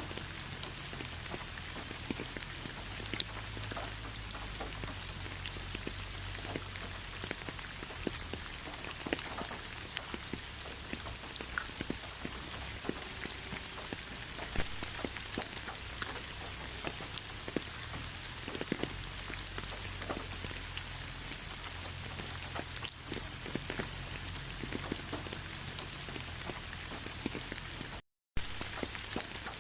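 Steady rain, with many individual drops ticking distinctly over a continuous hiss. The sound cuts out for a fraction of a second near the end.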